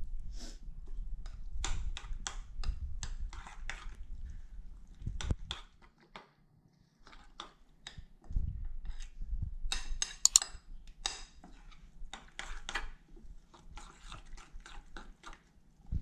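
A spoon stirring thick pajeon batter of chopped vegetables and egg in a glass bowl: wet squelching and scraping with light clicks of the spoon against the glass, pausing briefly around the middle.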